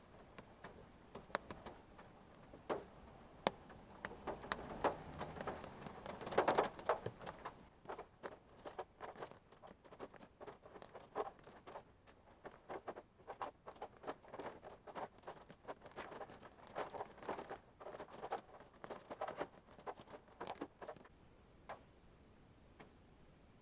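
Raindrops pattering irregularly on a parked car's roof and windshield, heard from inside the car: a dense spell about six seconds in, the drops thinning out near the end.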